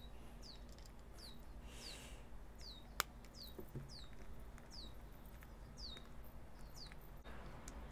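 A small bird chirping over and over, short high chirps that fall in pitch, one or two a second. A single sharp click about three seconds in.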